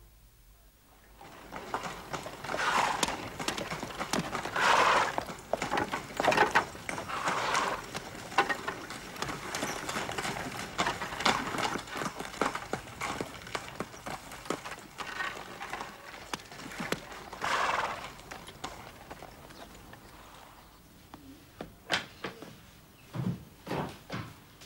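Horse's hooves clip-clopping as it pulls a carriage along, a dense run of hoof strikes that fades out about three quarters of the way through. Near the end come a few heavy, low thumps.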